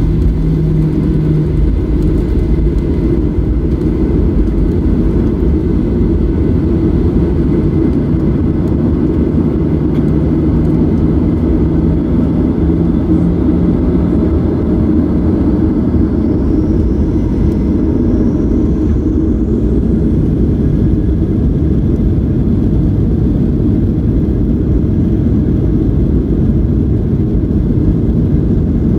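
Steady engine and rolling rumble inside the cabin of a Boeing 737-800 taxiing on its CFM56-7B engines. A low hum comes and goes, and a faint high whine rises about halfway through.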